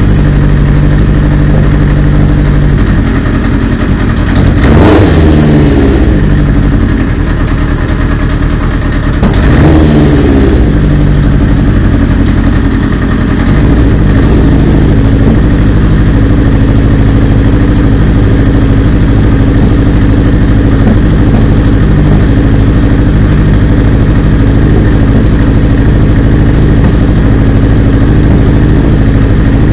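1979 Honda CB750 DOHC's air-cooled inline-four engine idling steadily, with two short throttle blips about five and ten seconds in, each rising and falling in pitch.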